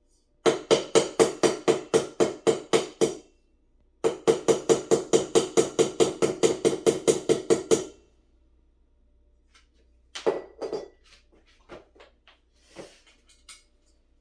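Two fast runs of evenly spaced, ringing knocks, about five a second, the first lasting about three seconds and the second nearly four; then a few scattered, fainter clicks and knocks.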